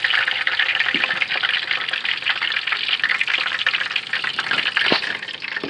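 Battered walleye fillets frying in hot grease in a pan: a steady, dense crackling sizzle.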